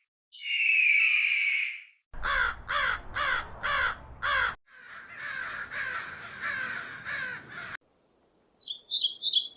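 Animal calls: one long, even call, then a run of five harsh calls falling in pitch, about two a second, followed by a fainter, longer run of similar calls, and short high chirps near the end.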